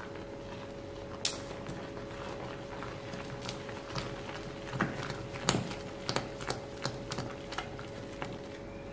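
Steel ladle stirring thick fermented idli batter in a stainless steel pot, with irregular clinks and knocks where the ladle strikes the pot, the loudest a little past the middle. A steady hum runs underneath.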